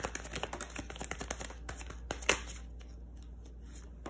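A deck of tarot cards being shuffled by hand: a quick run of papery clicks and slaps, with one sharper snap about two seconds in, then a few fainter clicks.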